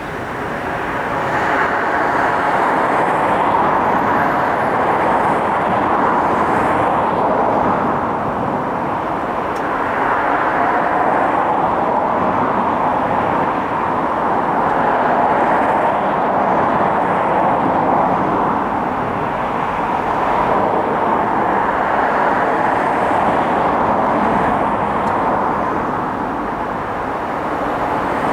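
A train running over the level crossing: a steady rush and rumble of wheels on rail that swells about a second in and holds, rising and falling slightly.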